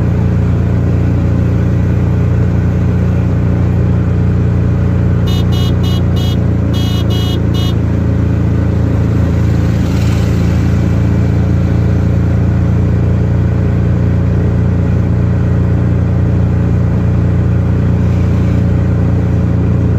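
Road vehicle's engine running steadily under way, with wind and road noise. About five seconds in there are two quick runs of short horn beeps.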